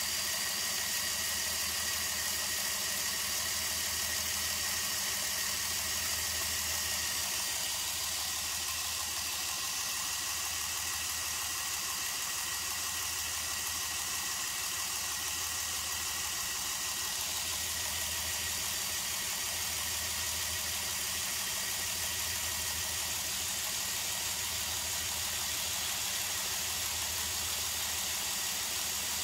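Small electric air compressor running steadily, a constant mechanical hum with a low throb that swells about every two seconds, pumping air into a balloon through aquarium tubing.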